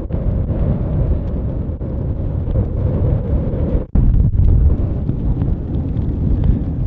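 Strong mountain wind buffeting the microphone in a steady low rumble, with a brief break about four seconds in.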